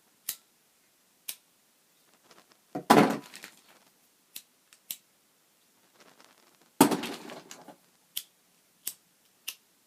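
Disposable lighters being flicked to test them: a string of sharp single clicks, with two louder clattering knocks about three and seven seconds in as lighters are handled and set down among the others.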